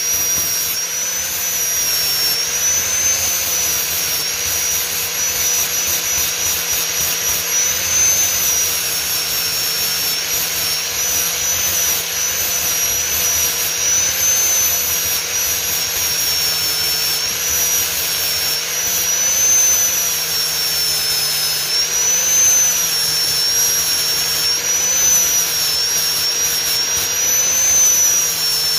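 Handheld angle grinder running continuously as a steel hammer head is pressed against its disc and ground. Its high whine wavers slightly in pitch as the load on the disc changes.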